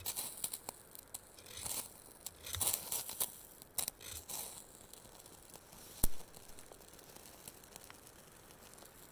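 A knife scraped in several short, quick strokes to throw sparks onto a tinder bundle, with one sharp click about six seconds in.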